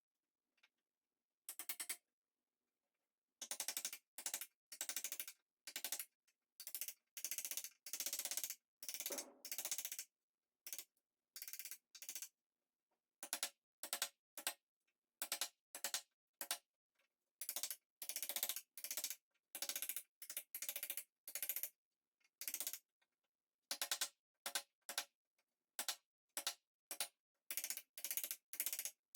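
Repeated short strokes of a hand woodworking tool working wood, about one to two a second, with dead silence between strokes and a pause of a few seconds near the start.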